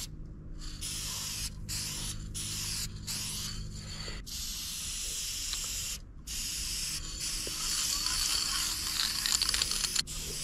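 Aerosol spray paint can hissing in long bursts with short breaks between them, as silver paint is sprayed on. A low steady hum sits under the first four seconds or so, then stops.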